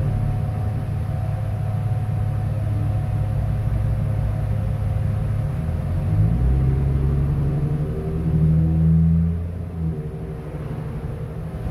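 Low, steady motor hum, like an engine running, that changes pitch about halfway through and swells briefly near the end.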